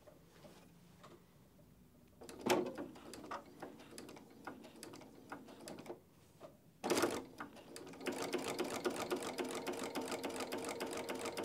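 Domestic sewing machine stitching straight quilting lines through fabric and batting, the needle ticking rapidly. It starts about two seconds in and pauses briefly around six seconds, then starts again and runs fast and steady.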